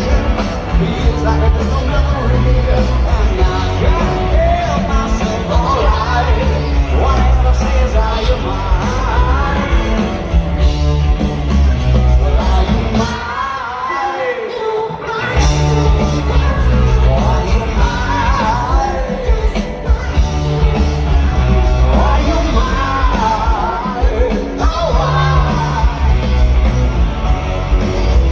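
Live rock band playing loud, with heavy bass and drums under sung vocals. The bass and drums drop out for about two seconds about halfway through, then come back in.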